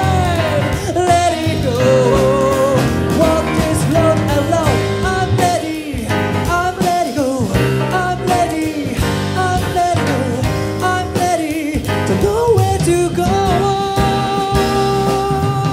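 Live jazz band, with keyboards, electric bass and drums, playing under a male vocalist who sings gliding, ornamented vocal runs and holds one long note near the end.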